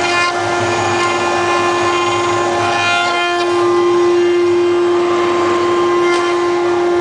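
CNC machine running, with a steady whine and higher tones that fade in and out over constant machining noise.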